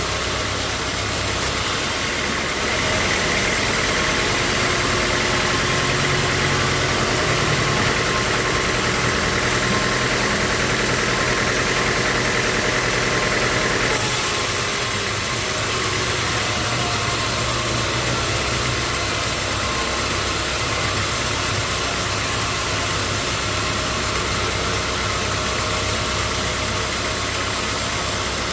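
Sawmill machinery running steadily. A higher whine rides on top for the first half and drops away about halfway through, while the machine noise carries on.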